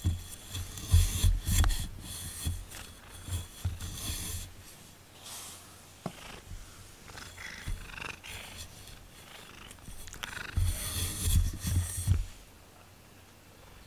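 Black domestic cat purring with its fur close against the microphone, a low pulsing rumble strongest near the start and again about ten seconds in, with rustling of fur and fabric rubbing the microphone.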